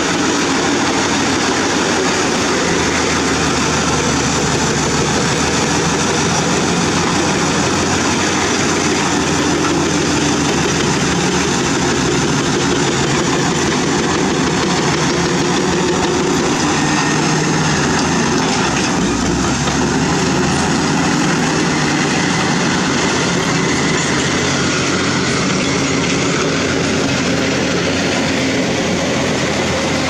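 Komatsu D85E-SS crawler bulldozer working: its diesel engine running steadily with the steel tracks clattering as it pushes broken rock.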